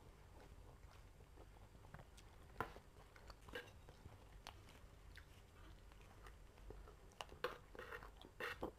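Faint close-up chewing of food, with scattered small clicks and clinks of a metal spoon and fork on a china plate; the sharpest clicks come about two and a half seconds in and near the end.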